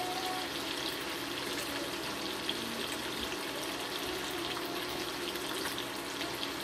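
Bacon frying in a pan on an induction cooktop: a steady sizzle with fine crackles throughout.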